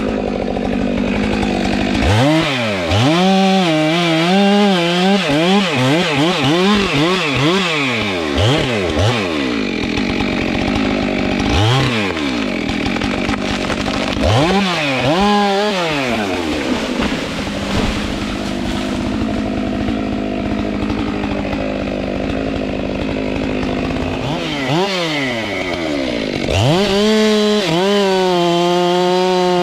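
Stihl MS 462 two-stroke chainsaw revved up and down in quick repeated bursts for several seconds, then running lower with a few more single revs, and held at a steady high speed over the last few seconds.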